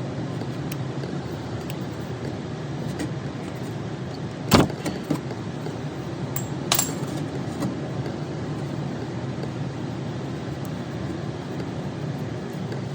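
A steady low mechanical hum, with a loud sharp metallic knock about four and a half seconds in, a lighter one near seven seconds, and a few faint clicks.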